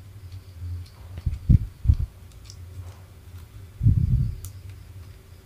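Handling noise from soldering iron parts on a wooden workbench: soft low thumps about one and a half and two seconds in, and a longer cluster about four seconds in, with a few small clicks, over a steady low hum.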